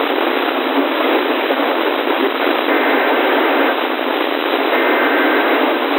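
Steady radio static hiss from a receiver picking up the alert broadcast between messages, with two faint thin tones in the hiss about halfway through and near the end.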